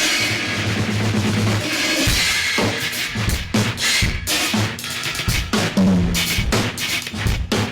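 A percussive groove of kick and snare-like hits with a long hissing cymbal-like wash at the start, over a low bass line.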